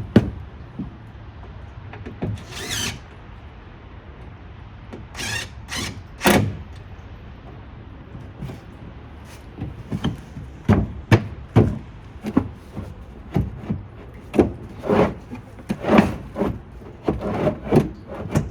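Wooden knocks and thuds from a homemade plywood truck-bed toolbox being handled and shifted into place, a few scattered at first, then coming thick and irregular in the second half.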